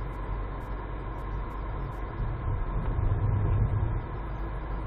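Car engine and road noise heard from inside the cabin while driving at about 40 km/h: a steady low rumble that swells slightly about three seconds in.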